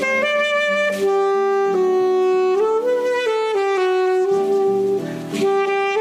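Yamaha YAS-275 alto saxophone playing a slow Japanese tune in held notes that step up and down in pitch. A short breath is taken about a second in and again just past five seconds.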